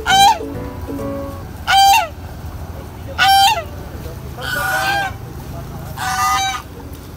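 A domestic goose honking five times, about a second and a half apart; the first three calls are short and clear, the last two longer and hoarser.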